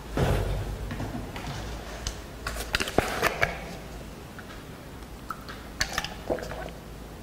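Quiet room tone with a steady low hum and scattered small clicks and knocks, a cluster about three seconds in and another near six seconds, with a short rustle at the start.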